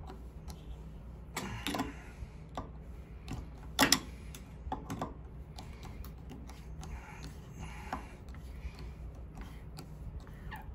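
Screwdriver tightening the screws beside a shower valve cartridge: scattered small clicks and scrapes of the metal tip on the screw heads, with one sharper click about four seconds in, over a low steady hum.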